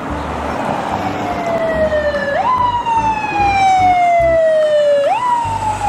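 Ambulance siren sounding as the ambulance drives by, its tone sliding slowly down and then sweeping quickly back up, over and over about every three seconds.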